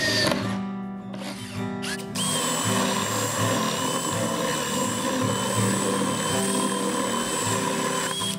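Power drill with a paddle bit boring a hole in an MDF panel: a few short bursts of the motor at first, then a steady run from about two seconds in that stops just before the end.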